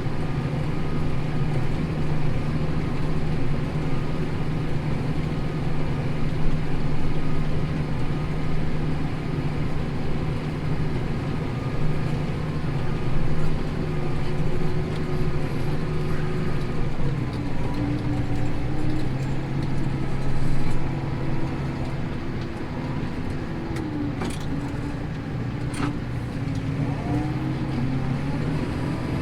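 Tractor engine running steadily under load while pulling a plough; its note drops a little just over halfway through.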